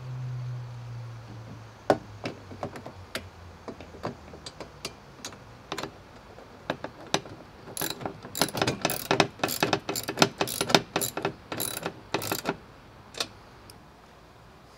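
Ratchet wrench clicking as a nut is tightened onto a bolt: scattered single clicks at first, then a fast run of clicking from about eight seconds in that stops shortly before the end.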